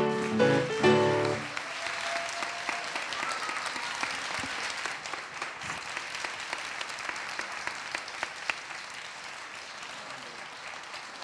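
The closing chords of a grand piano end a song, then an audience applauds steadily, easing off slightly near the end.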